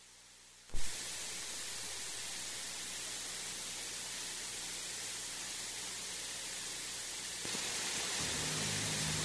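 Steady hiss from an old off-air tape recording, starting with a sharp click just under a second in and stepping up slightly in level about seven and a half seconds in. Music begins softly near the end.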